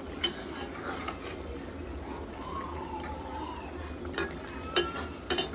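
Fish curry bubbling in a metal pot, with a spoon stirring and clinking against the pot: a click early, another about a second in, and three sharp clinks near the end.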